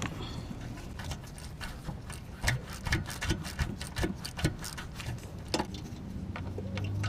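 Irregular metallic clicks and light knocks of hand tools working on the exhaust under a Honda Odyssey minivan, with a quick run of ticks in the middle. A low hum comes in near the end.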